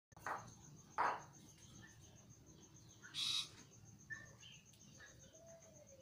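Caged yellow-vented bulbul (trucukan) calling: two loud short chattering notes near the start, a harsh noisy burst a little after three seconds, then a few brief whistled notes and a slow low glide near the end. A cricket chirps steadily behind, about four to five pulses a second.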